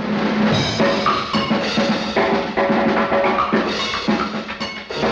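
Lively orchestral cartoon score driven by drums and percussion, with quick, sharp drum strikes over held notes.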